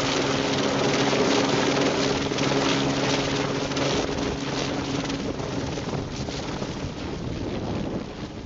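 Helicopter running overhead: a steady low hum of several tones under a broad rushing noise. It grows fainter through the second half, and the hum dies away about halfway through.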